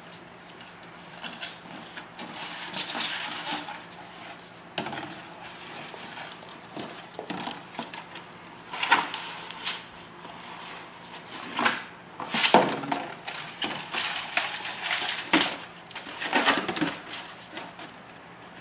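A Rhodesian Ridgeback puppy chewing and pushing around a plastic container, the plastic crackling and crunching in irregular bursts, with the loudest crunches in the second half.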